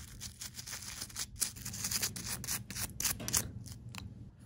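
Toothbrush scrubbing a small pancake-motor housing part in quick back-and-forth strokes, several a second, brushing off old lubricant.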